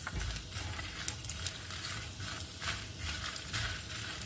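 Chana dal, dried red chillies and curry leaves roasting in a little oil in a pan, stirred: a light sizzle with irregular stirring strokes a few times a second.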